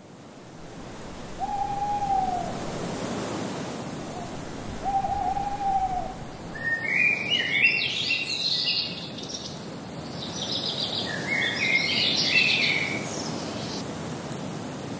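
An owl hooting twice, each hoot a single even tone that rises slightly and falls off, a few seconds apart. Then songbirds twitter in two bursts of quick high chirps, all over a steady rushing background noise.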